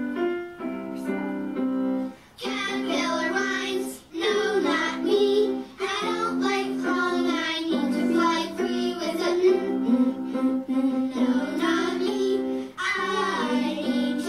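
Children's song about the letter N playing: a couple of seconds of held instrumental chords, then a voice singing phrase by phrase over the accompaniment from about two seconds in.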